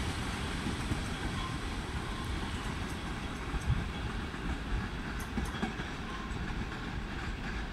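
Passenger train rolling through a station, a steady rumble of wheels on rails with a few faint clicks about five seconds in.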